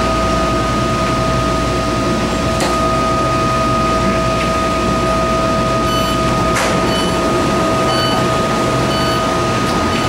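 Kawasaki metro EMU rolling to a stop, heard from inside the car. The low running rumble dies away about seven seconds in, over a steady two-tone hum. From about six seconds in, short high beeps sound about once a second as the train stands before its doors open.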